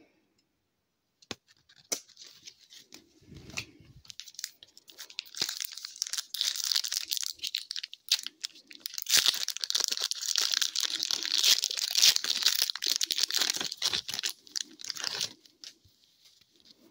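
A hockey card pack's wrapper being torn open and crinkled by hand: a few handling clicks and knocks at first, then a dense crackling rustle that grows louder in the second half and stops shortly before the end.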